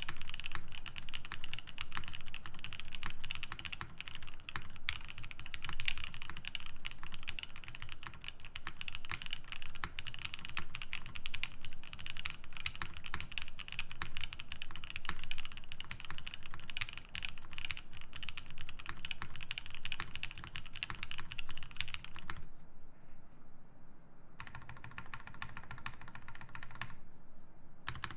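Continuous fast typing on a Matrix Noah mechanical keyboard with lubed EV-02 switches, a UHMWPE plate and GMK Honey keycaps. It is a dense, irregular run of key strokes. About 22 seconds in, the typing breaks off and a steadier, different rapid sound follows.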